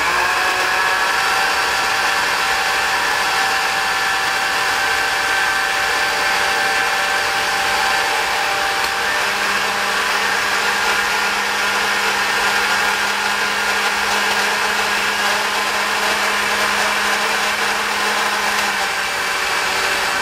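Hamilton Beach glass-jar countertop blender running steadily on its 'blend' setting, its motor whirring as it churns a thick milkshake of milk, banana, peanut butter and chocolate syrup. About halfway through a low hum joins the steady whir.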